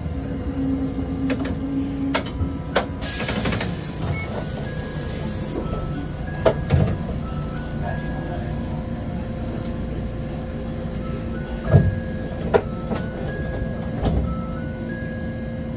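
Hakodate city tram running along its street track with a steady rumble and irregular clacks and knocks from the wheels over the rail. A high hiss lasts a couple of seconds about three seconds in. Through the second half, a string of short high tones climbs in steps and repeats.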